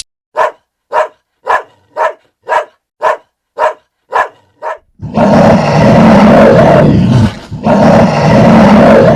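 Animal calls: a run of nine short, evenly spaced calls about two a second, then two long, loud calls with a short break between them.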